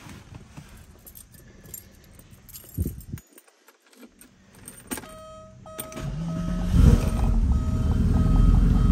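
Keys jangling and rattling at the ignition, then a repeating electronic chime starts beeping. About six seconds in, the 1993 Porsche 964 Carrera 2's air-cooled flat-six cranks briefly and catches cleanly, then settles into a loud, steady idle while the chime keeps beeping.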